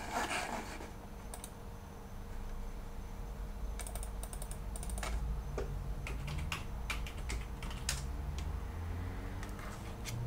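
Typing on a computer keyboard: keys clicking in short, irregular runs.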